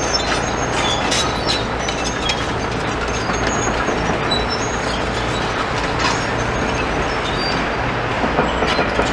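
Tracked demolition excavator travelling across a site, its diesel engine running steadily under the clank and squeak of its steel tracks, with short high squeaks scattered throughout.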